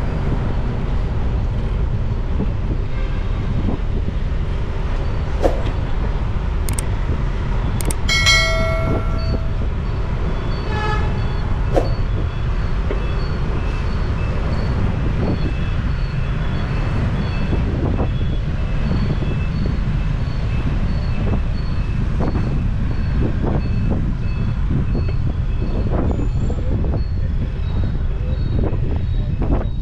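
Steady low rumble of a motorbike ride through city traffic, with a vehicle horn honking about eight seconds in. From about ten seconds on, a high beep repeats at an even pace, just under two a second.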